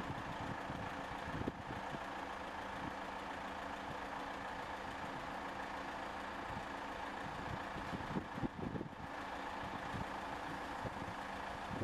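Heavy machinery engines running steadily in a low, even hum, with a few faint low thuds.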